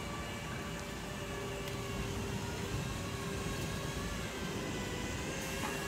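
Steady mechanical hum over a low rumble, with a faint whine of several held tones that drift slightly in pitch.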